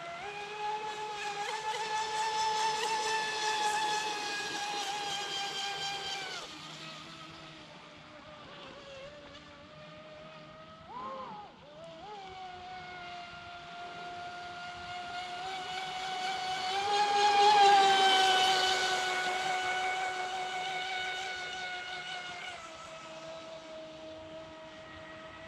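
Pro Boat Impulse 32 radio-controlled boat's brushless electric motor whining under throttle. It steps up right at the start, eases off about six seconds in, blips briefly around eleven seconds, then climbs to its loudest as the boat runs close at about seventeen to eighteen seconds, and backs off again near the end.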